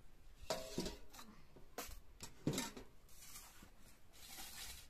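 Stainless steel plates being set down and shifted on a concrete floor: a few light clinks and knocks, some with a short metallic ring, with soft rustling in between.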